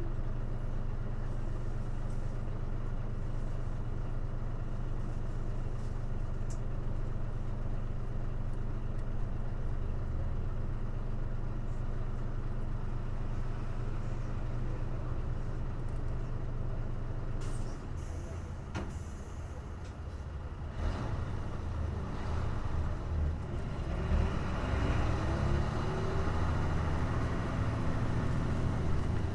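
Hino Blue Ribbon KC-HU2MMCA city bus engine, heard from inside the bus. It runs at a steady note, then about eighteen seconds in there is a short hiss of air from the air brakes. After that the engine grows louder and rises in pitch as it revs up again.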